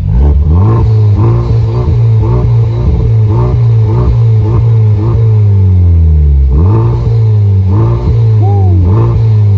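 Honda Civic Type R's turbocharged 2.0-litre four-cylinder, fitted with a PRL high-flow intake, being revved while parked. It gives about a dozen quick blips, each rising and falling, with a couple of longer pulls, all capped at roughly 4,000 rpm by the stationary rev limiter.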